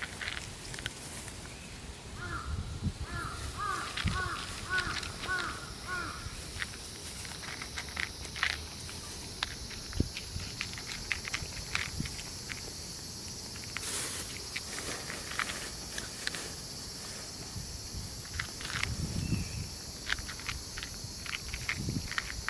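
A bird calls in a quick run of about seven short notes a few seconds in, over scattered small clicks and rustles and a steady high-pitched hiss.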